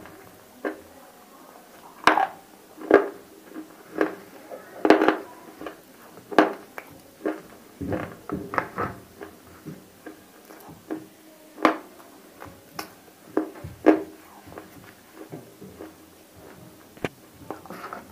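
Close-up crunching and chewing of hard clay cubes coated in roasted nakumatt clay paste: irregular sharp crunches, about one every half-second to second.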